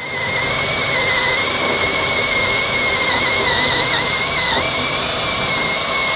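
Power drill driving a 3-inch hole saw through a plastic tank wall: a steady high whine that dips slightly in pitch now and then as the saw bites.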